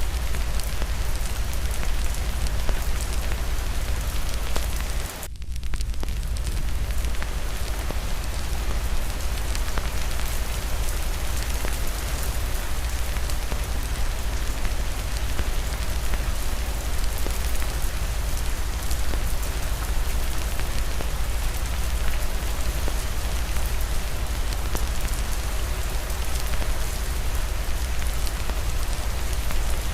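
Steady rain falling, mixed with the crackle of a wood fire in a fireplace. The sound dips briefly about five seconds in, then carries on unchanged.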